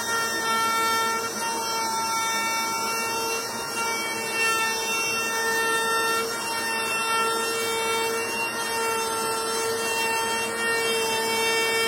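A steady, unbroken pitched drone with several overtones, held at one pitch over a constant hiss.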